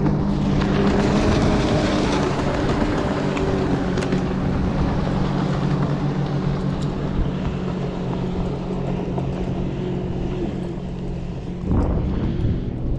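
Boat motor running steadily under way, with rushing wind and water noise over it; a brief louder rush near the end.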